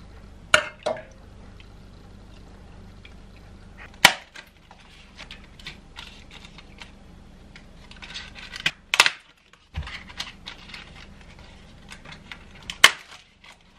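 Kitchen clatter: dishes and utensils clinking and knocking, with several sharp knocks, the loudest about four seconds in and near the end, and softer clinks between.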